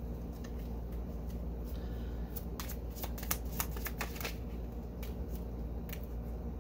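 Tarot cards being handled and drawn from the deck: a quick run of crisp card flicks and slaps about two and a half to four and a half seconds in, over a low steady hum.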